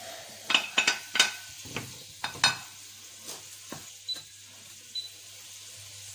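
Spoon stirring chopped onion, peppers and carrots frying in oil in a stainless steel pot, knocking against the pot several times over a light sizzle. Near the end, two short high beeps from the hob's touch controls.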